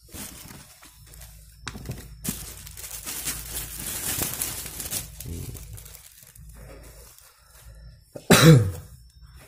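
Clear plastic bag crinkling and rustling as a new boot is handled and pulled out of it. A single loud cough sounds near the end.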